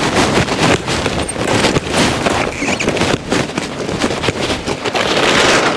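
Plastic bale sacking rustling and crackling as it is cut and pulled open by hand, in a continuous run of crinkles and rips.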